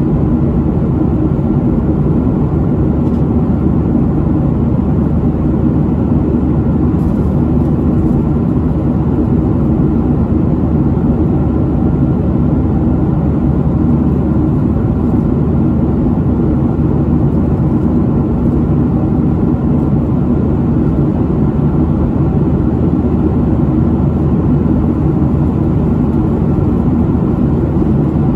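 Steady jet engine and airflow noise heard inside a Boeing 737's passenger cabin in flight, a constant low rumble that does not change.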